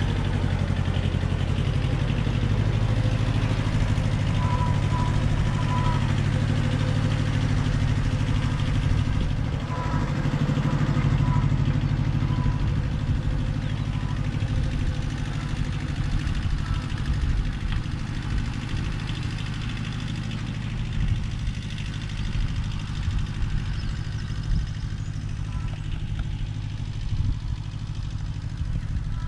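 Engine of a Zen-Noh ZB6000 compact tractor running steadily, a little quieter in the second half.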